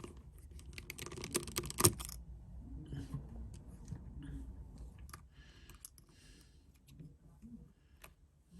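Small clicks and taps of a precision screwdriver and tools working on an iPhone XR's internal screws, rapid for about the first two seconds, then sparse and faint.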